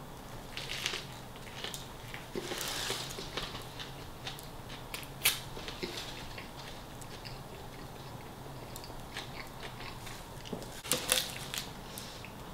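A person chewing a mouthful of sub sandwich: soft, wet chewing and crunching, with a few sharper crunches about five seconds in and near the end.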